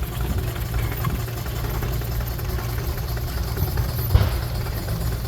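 Engine running at a steady idle with a low rumble, and a single knock about four seconds in.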